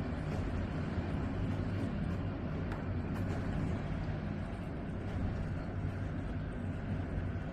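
Rough surf breaking and washing over a beach of round pebbles: a steady low rumble of waves, with faint clicks of stones knocking together as the water rolls them.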